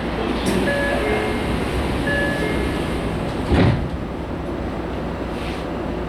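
Toyo Rapid Railway 2000 series EMU heard from inside the car while running: a steady low rumble of wheels and running gear, with a sharp loud thump about three and a half seconds in.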